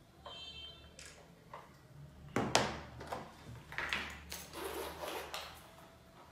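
Handling noises on a wooden table: a brief light ring just after the start, a smartphone set down with a sharp knock about two and a half seconds in, then rustling and clicks as a leather clutch bag is picked up and opened.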